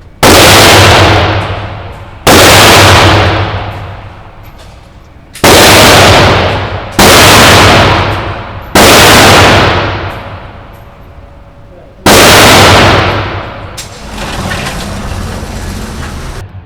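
An AR-15 rifle fitted with a carbine-length gas system fired six times in slow, uneven succession, about one to three seconds apart, each loud shot trailing off in a long echoing decay. A steady noise fills the last couple of seconds.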